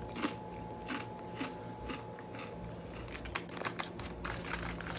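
Someone chewing Doritos-type tortilla chips: irregular crisp crunches that come faster after about three seconds.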